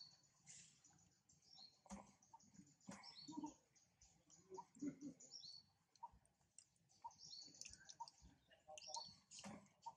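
Faint bird chirping: quick runs of short, high notes, some falling in pitch, repeated throughout, with a few soft clicks and knocks.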